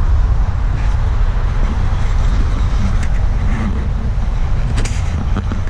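Steady low outdoor rumble picked up by a body-worn camera's microphone, with a few faint clicks.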